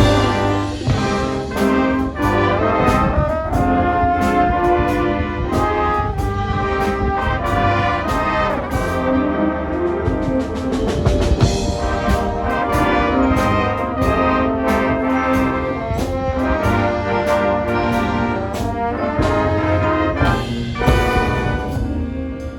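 High school marching band playing live: brass melody and chords from trumpets and trombones over a steady, driving beat from the marching percussion section.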